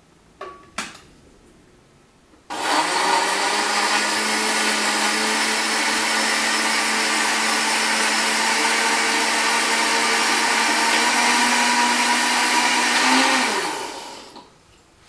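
Imusa countertop blender puréeing pineapple chunks with water: a couple of light clicks as the lid goes on, then the motor starts suddenly about two and a half seconds in and runs at a steady pitch for about eleven seconds. Near the end its pitch rises briefly before it is switched off and spins down.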